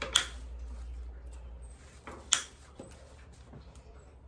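Wire snips cutting through the wire-cored stems of silk flowers: two sharp snips about two seconds apart.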